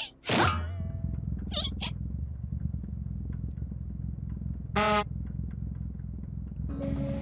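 Tubby Toast machine starting up as its button is pressed: a click, a falling whoosh, then a steady low mechanical rumble. A short pitched tone sounds about five seconds in, and music comes in near the end.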